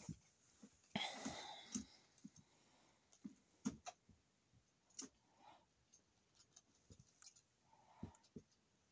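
Near silence broken by faint, scattered clicks and ticks, with a brief rustle about a second in.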